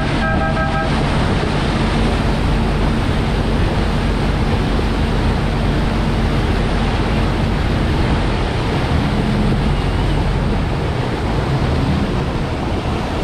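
Chao Phraya express boat under way: its engine runs with a steady hum over rushing water, and wind buffets the microphone. A brief two-note tone sounds right at the start.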